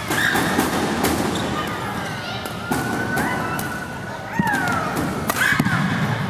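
Badminton rally on an indoor court: several sharp racket hits on the shuttlecock, a second or more apart, with short squeaks of players' shoes on the court mat over a background of hall and crowd noise.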